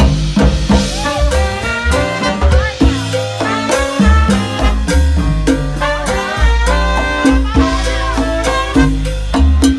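Live Latin jazz band playing a salsa-style number: congas slapped and tapped under horns, with a steady bass line.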